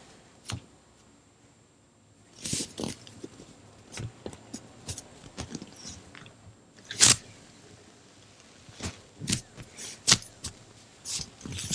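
Giant watermelon squishy, a soft foam toy, being squeezed, pressed and tapped by fingers right at the microphone: irregular crinkly crackles, squishes and sharp taps. There is a short quiet pause about a second in, and the sharpest pops come about seven and ten seconds in.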